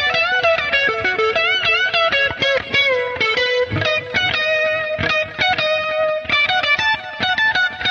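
Music: an electric guitar with distortion playing a fast melody, its notes bent and wavering.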